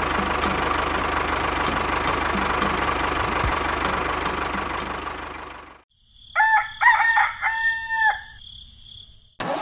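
Small electric motor of a homemade toy tractor whirring steadily with a faint even ticking, fading out about five seconds in. After a short silence a rooster crows once, the call ending in a long held note.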